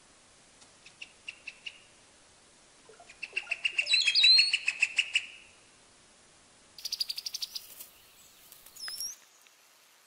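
Brown-headed cowbirds calling during a courtship display: a few soft chirps, then a loud rapid run of chirps with rising whistled notes, a fast rattling chatter about seven seconds in, and a short whistle near the end.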